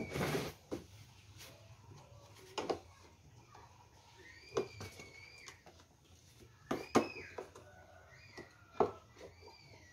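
Plastic clicks and knocks as the Swan F16 electric sprayer's plastic tank and red control panel are handled and pressed into place, the sharpest knocks about 7 and 9 seconds in. From about four seconds in, a few short high calls that rise and fall come from an animal in the background.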